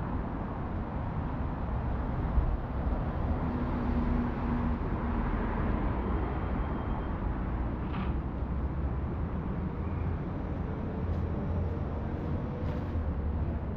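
City street ambience: steady rumble of road traffic, with a brief engine hum about four seconds in.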